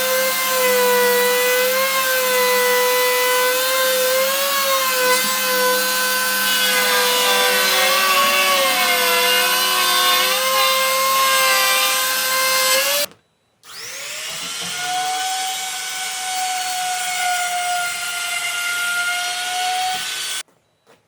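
Electric woodworking power tool running and cutting wood, its motor pitch wavering and dipping under load, then stopping about two-thirds of the way in. It starts again, spins up to a higher steady pitch and cuts off shortly before the end.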